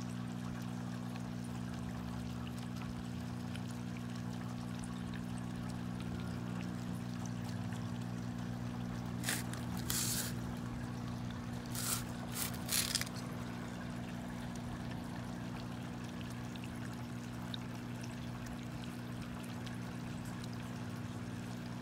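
Steady hum of aquarium equipment with trickling, bubbling water from the tank, holding a few fixed low tones throughout. A few short bursts of noise come around the middle.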